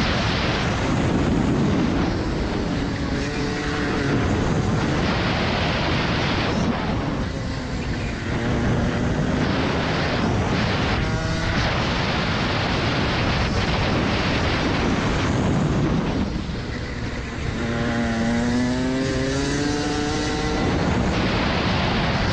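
Rotax Max Senior 125 two-stroke kart engine, fitted with a restrictor, running hard at racing speed with heavy wind rush on the onboard microphone. The engine note drops about seven seconds in and again near the end as the driver lifts for corners, then climbs back up under throttle.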